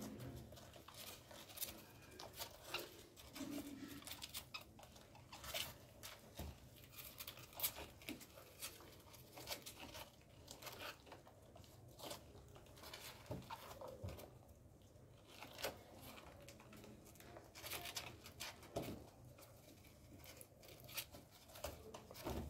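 Faint, irregular rustling and scratching with many small scattered clicks: a rabbit doe and her newborn kits shifting about in a cardboard nest box.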